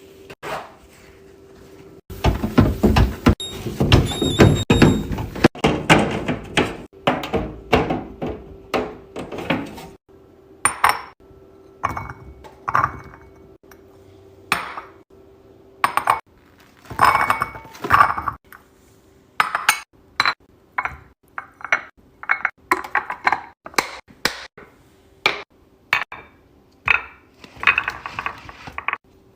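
Groceries and containers being set down and arranged in a refrigerator: many knocks, clinks and thunks of jars, bottles and plastic boxes. They come thick and fast for the first several seconds, then more spaced out, over a faint steady hum.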